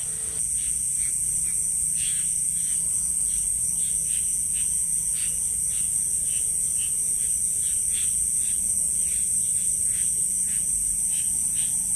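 Night chorus over rice paddies: a steady high-pitched drone of crickets and other insects, with many short calls scattered through it that are typical of frogs. A steady low rumble lies underneath.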